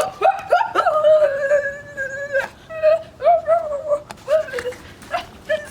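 High-pitched whining cries: several drawn-out, wavering wails, the longest held for about a second, with short breaks between them.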